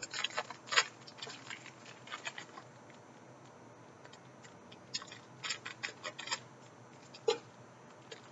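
Small plastic bag of green craft sand crinkling as it is handled, with scissors snipping its corner open: scattered short clicks and crinkles in little clusters.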